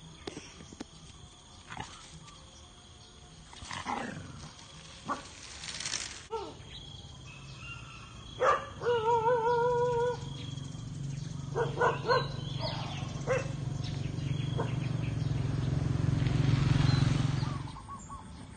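A dog growling in a long, low rumble that grows louder for about ten seconds and then stops sharply, with a short warbling whine about eight seconds in and a few scattered knocks.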